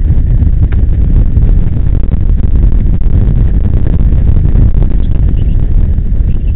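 Loud, steady low rumble and wind buffeting on a camera mounted on a BIZ EcoVolt electric go-kart driving at speed round the track.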